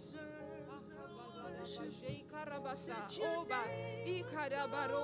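Background worship music: a sung melody over steady sustained chords. The singing grows louder and more ornamented about three seconds in.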